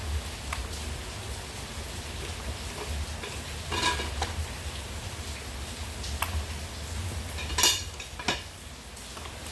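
Several short, light clattering knocks of hard objects being handled, the loudest about three quarters of the way through, over a steady low hum.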